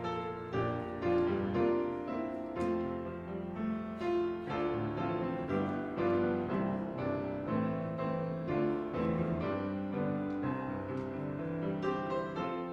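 Piano music: a steady run of notes and chords, each one ringing on after it starts.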